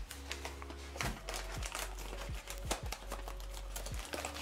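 Light, irregular clicking and ticking as granulated sugar is scooped and poured into a bowl on a kitchen scale, over faint background music.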